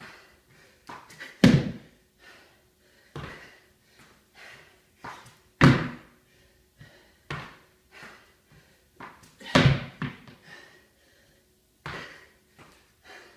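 Heavy thumps during a barbell deadlift and box-jump workout, three loud ones about four seconds apart, with lighter knocks between them.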